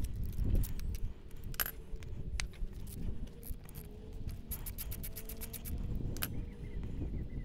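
Small metallic clicks and clinks as a spark plug and its plug lead are handled on a classic Mini's A-series engine, with a quick run of clicks about halfway through.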